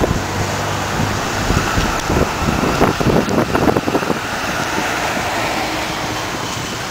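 Steady rushing ambient noise, like wind or traffic, with a cluster of irregular knocks and clatters in the middle.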